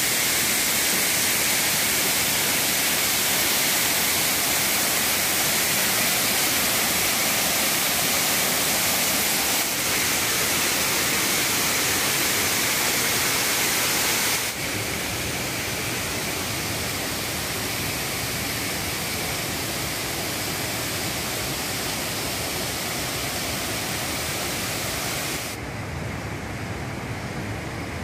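Steady rushing of waterfall and flowing stream water. It steps suddenly quieter about halfway through and again near the end, where it also loses its top end.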